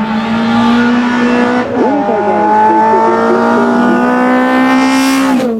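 Rally car engine at high revs, accelerating hard up the hill stage. Its pitch climbs steadily, breaks with an upshift about two seconds in and climbs again, then falls away sharply near the end.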